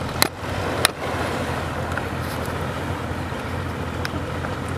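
An engine running steadily under wind noise on the microphone, with two sharp knocks in the first second.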